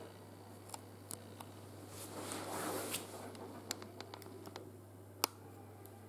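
Faint scattered clicks and a brief soft rustle from someone moving about and handling the camera, with one sharper click about five seconds in, over a steady low hum.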